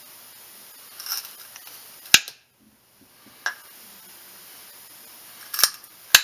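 Side cutters snipping off pins that stick out of a glued wooden gun stock: about four sharp snaps a second or two apart, the one about two seconds in the loudest.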